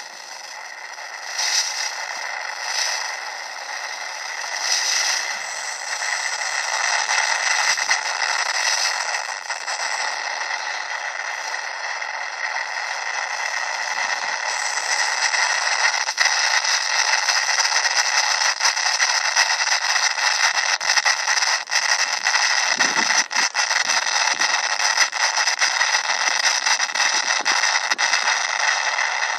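Steady radio static hiss from an analog FPV video link's audio, played through the ground monitor's speaker, with crackles and clicks that grow denser about halfway through.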